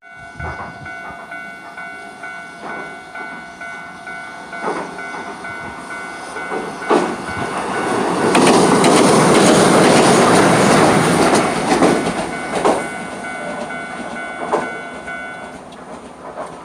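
Level-crossing warning bell ringing steadily while a Hiroden tram passes over the crossing, the passing loudest in the middle with wheels clacking over the rail joints. The bell stops about fifteen seconds in.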